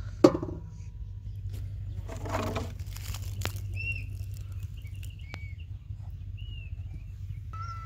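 A sharp knock on a metal pot with a short ring about a quarter second in, then a brief rustle of handling. From about four seconds in, small birds give short chirps, over a steady low rumble.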